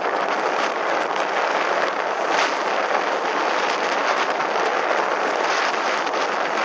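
Steady wind buffeting the microphone on a moving boat, with scattered faint crackles.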